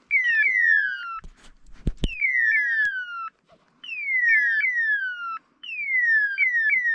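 Hunting-dog beeper collars signalling that the dogs are on point: a series of electronic calls, each sliding down in pitch, repeating in overlapping runs with short breaks. A few sharp knocks come about one and a half to two seconds in.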